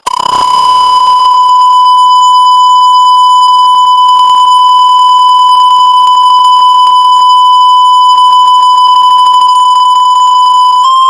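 A beep sound effect, electronically drawn out into one continuous, loud, high-pitched tone with a faint crackle running through it. Near the end, it steps slightly up in pitch.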